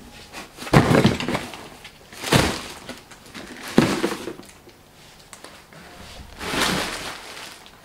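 Cardboard parcels and plastic mailer packages dropped and stacked onto a sofa, three thuds about a second and a half apart. Near the end comes a longer rustle of a plastic mailer bag being handled.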